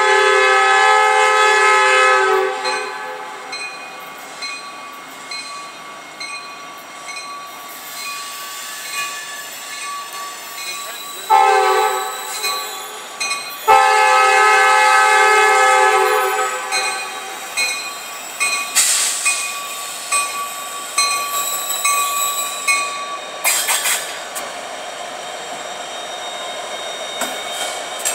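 Norfolk Southern diesel freight locomotives' air horn sounding a long blast, then about ten seconds later a short blast and another long one, as the train nears the grade crossing. The lead locomotives then pass close by, their engines running over the clatter and occasional squeal of wheels on the rails.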